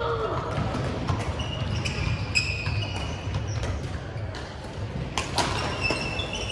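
Badminton doubles rally: repeated sharp racket-on-shuttlecock hits and short squeaks of sneakers on the wooden sports-hall floor, with more hits and squeaks from neighbouring courts.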